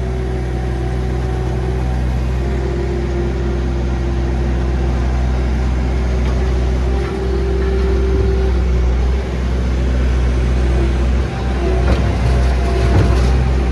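A vehicle engine running steadily, with a higher whine that comes and goes over it, while a heavy wrecker unit is being fitted into a truck bed; metal clanks near the end.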